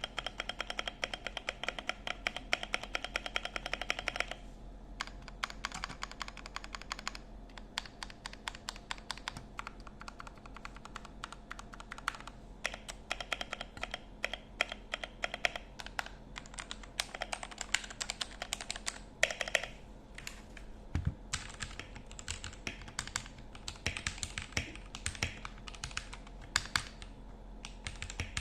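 Mechanical keyboard being typed on: rapid runs of key clicks and clacks in bursts, with short pauses between.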